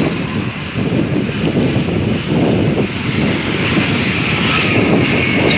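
Wind buffeting the microphone of a phone carried on a fast-moving bicycle: a loud, unsteady rushing rumble.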